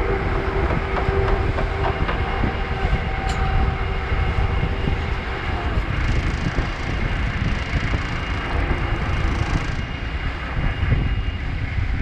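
Sport-fishing boat's engine running under way: a steady rumble with a faint whine over it.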